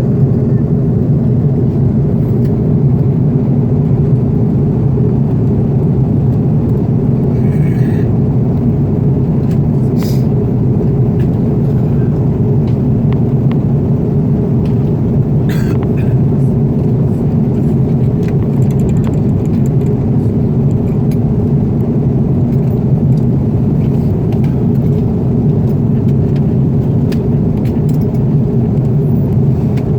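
Steady low rumble of an Airbus A330's engines and airflow heard inside the passenger cabin, with no change in level.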